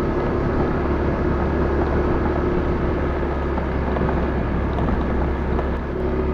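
Motor vehicle engine running steadily while driving along a road, with road and wind noise on the microphone.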